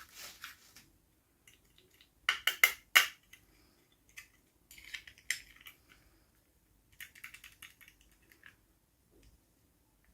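Small hard pieces clicking and clinking together as miniature toys and their accessories are handled, in three short flurries; the sharpest clicks come a couple of seconds in.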